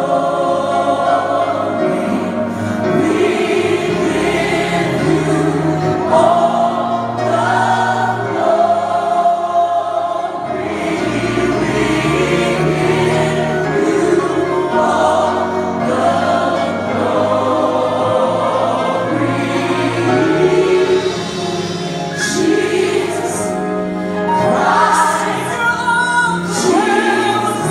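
A choir singing, music in a gospel style with sustained low notes beneath several voices.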